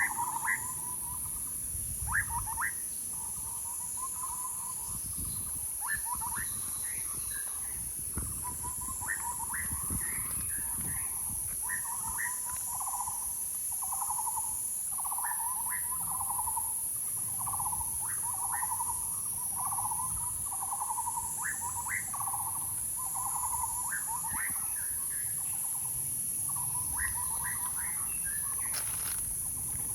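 A bird calling over and over: a long run of short notes at about one pitch, many with quick rising chirps, going on without a break.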